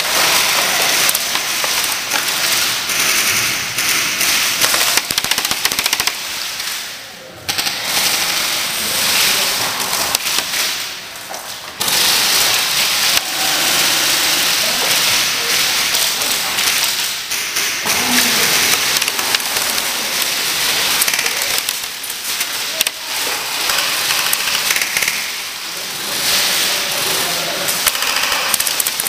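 Airsoft electric guns firing rapid full-auto bursts, a dense, near-continuous rattle that breaks off sharply about seven and twelve seconds in and starts again.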